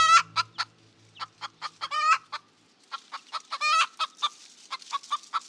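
Fowl clucking: a run of short clucks, about four a second, broken by longer wavering calls at the start and about two seconds in.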